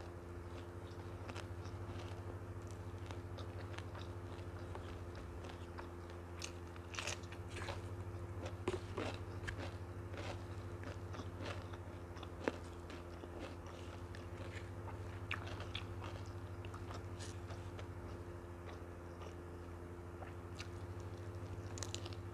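Close-miked chewing and wet mouth clicks of someone eating nasi lemak rice and noodles by hand, with a few louder clicks about nine and twelve seconds in, over a steady low hum.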